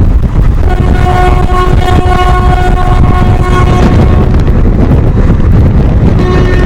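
WAP-4 electric locomotive's twin-tone horn sounding over the steady low rumble of the train running at speed. One long blast of about three seconds starts just under a second in, and another starts near the end.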